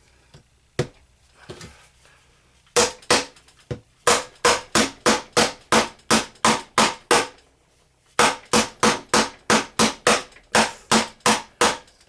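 Small hammer striking a hard, dried plaster dig block over and over, about three sharp blows a second, in runs with a short pause between them.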